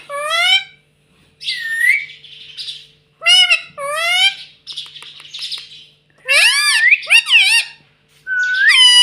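Ringneck parrot calling: a run of about six short, loud pitched calls with rising and arching glides, some with a harsher squawk mixed in.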